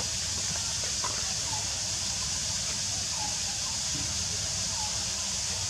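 Steady outdoor background: an even high-pitched hiss over a low hum, with a few faint short chirps scattered through.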